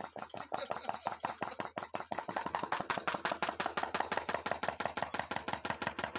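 Homemade coal-fired hot-air Stirling engine with diaphragm pistons running under its own power, its mechanism clacking in a fast, even rhythm. About two seconds in the clacks come faster and louder as the engine picks up speed.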